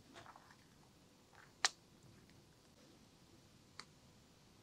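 A few faint, sharp clicks over a quiet background, the loudest about a second and a half in and a smaller one near the end.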